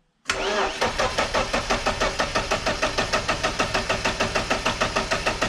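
Starter motor cranking a BMW M43B16 four-cylinder engine, starting suddenly about a quarter second in and turning it over in a fast, even rhythm of about five compression pulses a second without catching. The owner puts the long crank down to no fuel pressure after the car has stood unused.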